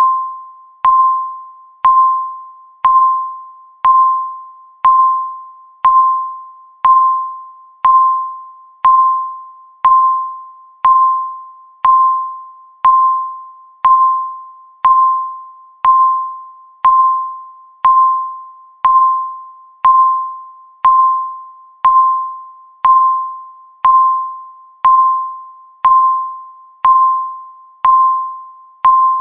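Countdown timer's tick: a short electronic ping near 1 kHz with a sharp attack, struck once every second and fading away after each strike.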